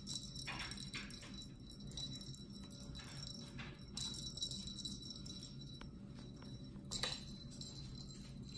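Scattered light clicks and rattles as a kitten bats at a pom-pom toy hanging from a cat tree, over a steady low room hum.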